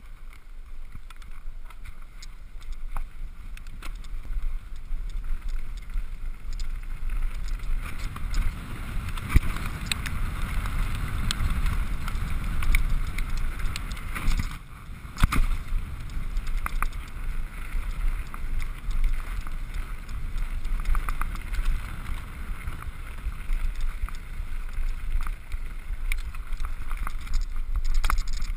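Downhill mountain bike ridden fast over grass and dirt: tyres rumbling on the ground, wind buffeting the camera microphone, and the chain and frame rattling with sharp knocks over bumps. The noise builds over the first few seconds as speed picks up, dips briefly about halfway and comes back with a sharp knock.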